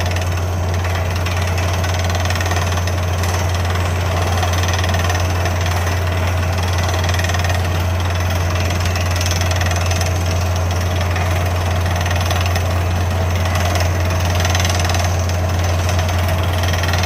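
Drilltech water-well drilling rig drilling rock with a down-the-hole air hammer and 9-inch bit. It gives a loud, steady, fast hammering rattle over the even hum of the rig's engine and air compressor.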